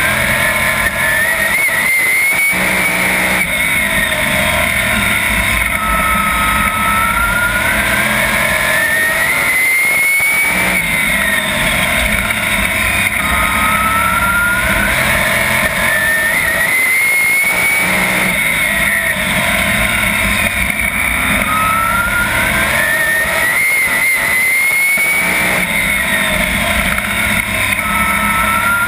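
Winged 410 sprint car's V8 engine heard from the cockpit at racing speed, its pitch rising down each straight and dropping sharply as the throttle comes off for the turns, about every seven seconds, four times.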